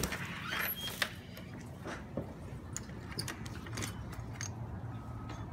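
A brass doorknob turned and a door unlatched and opened, giving scattered light clicks and knocks, the sharpest about a second in, over a steady low hum.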